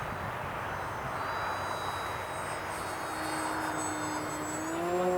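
Electric motor and propeller of a ParkZone VisionAire foam RC airplane in flight, a thin high whine over heavy wind noise on the microphone. About three seconds in, a lower propeller note comes in and rises slightly near the end.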